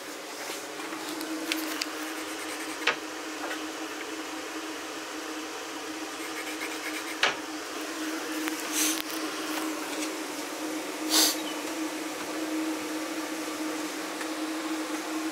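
A steady mechanical hum runs throughout. Over it come a few light knocks and two short scraping sounds as vinyl plank flooring is handled and fitted.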